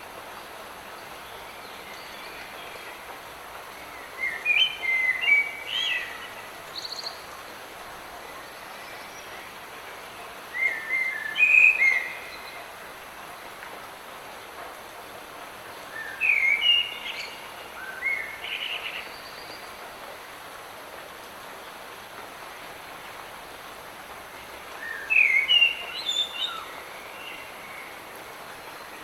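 Songbird singing in short chirping phrases, four times, over a steady hiss of light rain falling in a forest.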